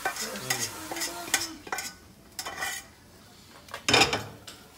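Metal spatula scraping and clicking against a stainless steel frying pan on a gas hob, with oil sizzling in the pan, and one loud clank about four seconds in.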